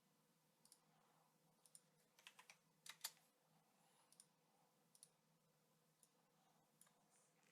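Faint, irregular clicks of a computer mouse and keyboard, a few single clicks and a quick cluster of several about two to three seconds in.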